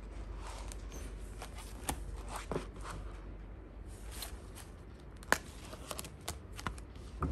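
Clear plastic binder and its pockets handled: rustling and crinkling of plastic with scattered light clicks, one sharp click a little past halfway.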